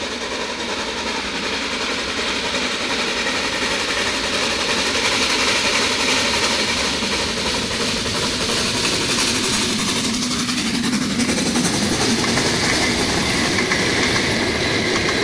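HSB steam locomotive 99 234, a metre-gauge 2-10-2 tank engine, approaching and passing with its train. The sound grows louder over the first few seconds, then holds steady as the locomotive and coaches roll by.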